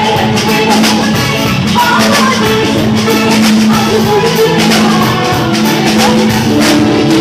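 Live band music: a woman singing into a microphone over electric guitar and a steady drum beat.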